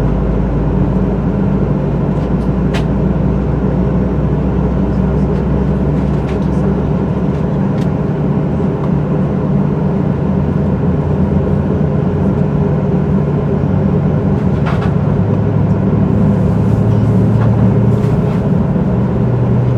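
Boeing 737-800 engines running while the airliner is on the ground, heard inside the cabin as a steady loud hum whose low tones shift slightly partway through. A few faint clicks sound over it.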